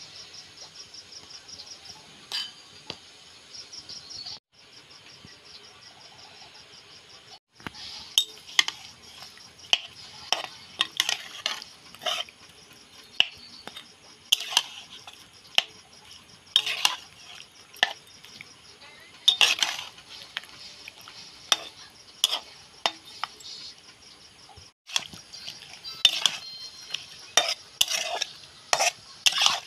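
Metal spoon scraping and clinking irregularly against a blackened wok as raw catfish pieces are tossed with chili flakes and turmeric, starting about eight seconds in. Before that, and faintly beneath it, there is a steady high insect chirring.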